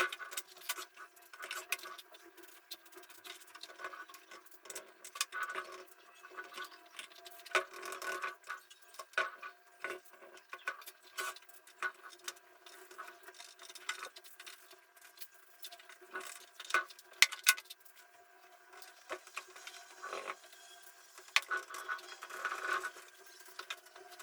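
Scattered, irregular light clicks and taps from handling tools and wooden parts during hand work, over a faint steady hum.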